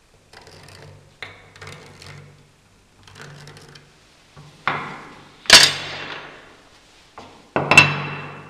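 Faint pencil scratching as a mark is drawn on a board. This is followed by a run of sharp knocks and clatters, the loudest about halfway through and a quick pair near the end, as a plastic rafter square and a steel bracket plate are set down on a wooden workbench.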